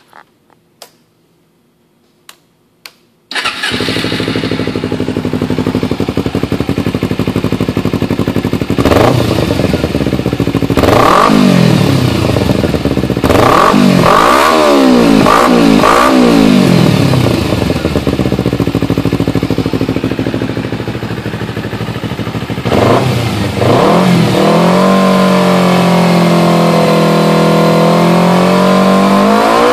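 Kawasaki Ninja 250R's parallel-twin engine, breathing through a Suzuki GSX-R muffler, starting after a few faint clicks about three seconds in, then idling. It is revved in a string of quick throttle blips, settles back to idle, and after another blip is held at raised revs, climbing again at the very end.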